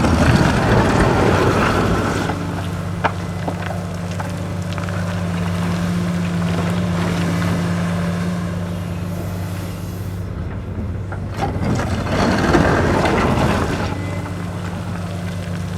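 Heavy diesel engines of an excavator and dump truck running steadily at a constant pitch. Gravel pours into the truck's dump body in two loud, rushing stretches, one right at the start and one about twelve seconds in.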